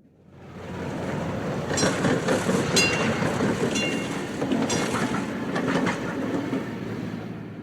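Tram running along its rails: a steady rumble with sharp metallic clicks about once a second from the wheels on the track, fading in at the start and out at the end.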